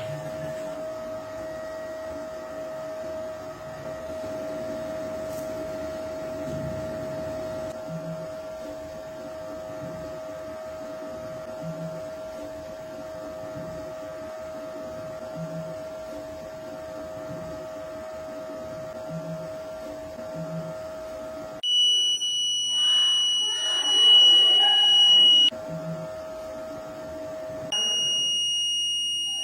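Buzzer of a homemade fire alarm circuit sounding a loud, steady, high-pitched tone twice: for about four seconds starting about two-thirds of the way in, with irregular noise mixed in, and again near the end. Before it, a fainter steady lower tone runs.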